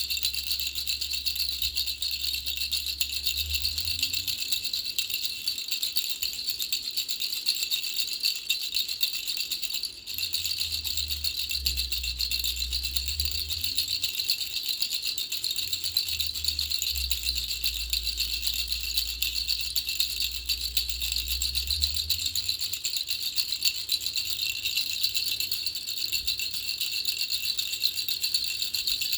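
Baby rattle shaken continuously, a dense, steady, rapid clatter with a brief break about ten seconds in.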